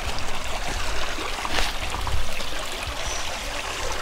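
A stream of water running and trickling steadily.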